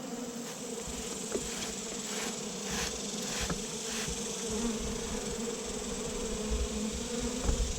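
Swarm of honeybees buzzing in a steady, dense hum as displaced bees gather at the vacuum's screen.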